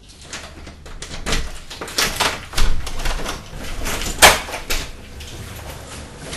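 A run of irregular knocks and bumps, the loudest about four seconds in, over a low steady rumble.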